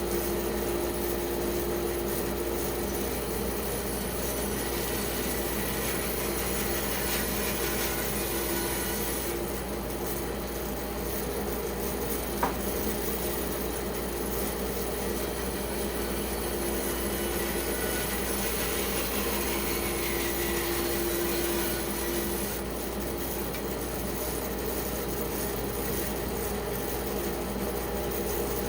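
Band saw running steadily, cutting through wet pecan wood, with one brief click near the middle.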